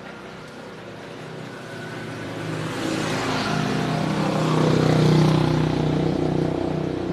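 A motor vehicle's engine passing by, growing louder to a peak about five seconds in and then fading.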